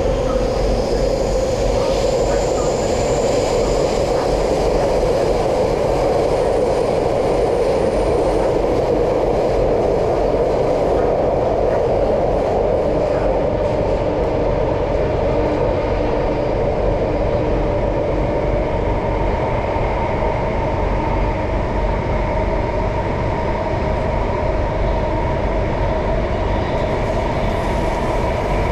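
Singapore MRT train running between stations, heard from inside the car: a steady rumble of wheels on rail with a faint whine that grows clearer in the second half.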